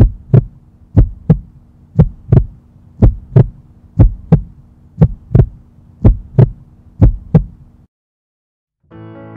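Heartbeat sound effect: eight lub-dub double thumps about one a second over a steady low hum, cutting off suddenly near the end.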